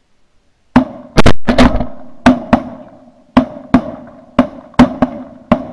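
A rapid volley of shotgun fire from several hunters shooting at passing geese: about a dozen loud, sharp shots in quick succession, some in close pairs, starting just under a second in.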